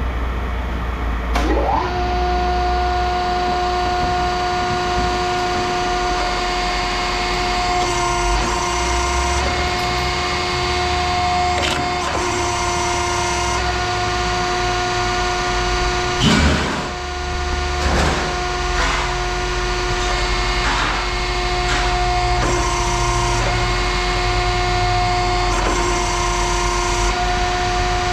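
Heavy machinery running with a steady whine over a low rumble, with occasional knocks, the loudest about sixteen seconds in.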